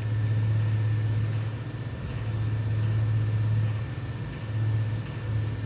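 A low steady hum, swelling and dipping slightly in level, with a faint thin whine above it.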